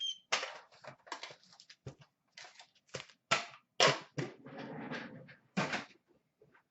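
Trading card pack wrapper crinkling and cards being slid and flicked by hand, a rapid string of crisp clicks and rustles with a longer rustle of the wrapper partway through.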